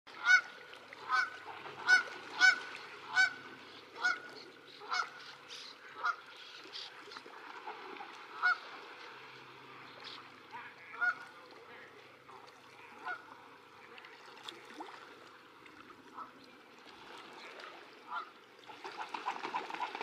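Canada goose honking repeatedly, about two loud honks a second at first, then fewer and further apart. Near the end a burst of rapid splashing and wing-flapping on the water begins as the mute swan chases the goose.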